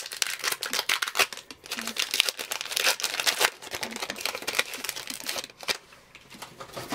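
Plastic-foil wrapper of a 2020 Topps Gypsy Queen baseball card pack crinkling and tearing as it is ripped open, loudest over the first three seconds or so, then lighter rustling as the torn wrapper is peeled back off the cards.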